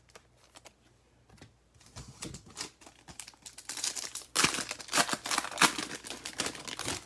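Foil wrapper of a Mosaic 2020 NFL trading-card pack being torn open and crinkled by hand: a few light clicks and rustles at first, then dense crackling from about two seconds in, loudest over the last few seconds.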